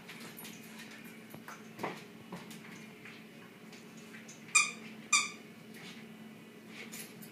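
Shiba Inu giving two short, high-pitched play barks about half a second apart, a little past halfway, during a tug-of-war game.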